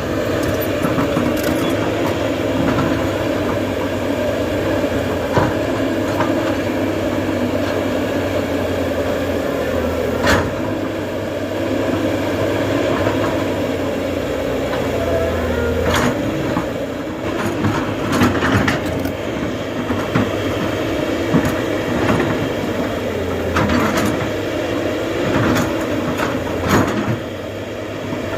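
Diesel engine of a digging machine running steadily, its pitch rising and falling with the load, with scattered sharp clanks.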